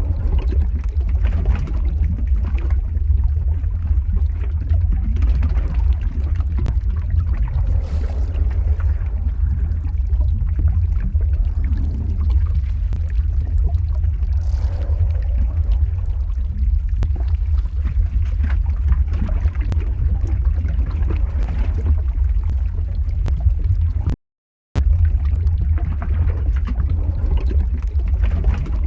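Lava flow ambience sound effect: a steady deep rumble with a pouring, liquid-like wash over it and a few faint crackles. It cuts out completely for about half a second near the end.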